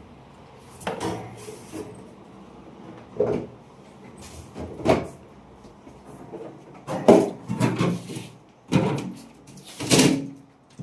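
A series of about seven short knocks and scrapes at irregular gaps, from a refrigerator and its packing being handled.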